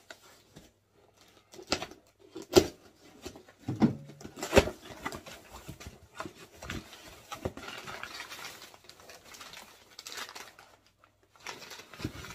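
Cardboard shipping box being opened and handled by hand: several sharp knocks and clatters, then a few seconds of brown paper packaging rustling.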